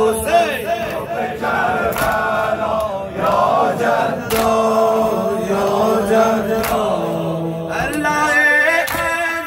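A crowd of men chanting a Shia mourning noha together, led by a reciter on a microphone. A sharp slap comes about every two seconds as the men beat their chests in time with the chant.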